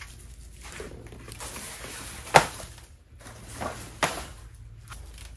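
Dry garlic stalks rustling in a wicker basket as it is handled, with two sharp knocks: the louder one about two seconds in, the other about four seconds in, when the basket is set down on a digital scale.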